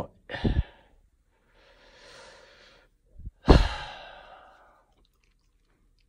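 A man breathing in and then letting out a sigh about halfway through, the sigh starting strong and fading over about a second.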